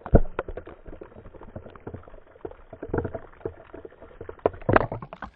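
Ice water splashing and dripping after a bucket of iced water is tipped over a person, with many small irregular knocks and patters of water and ice, and a louder burst near the end.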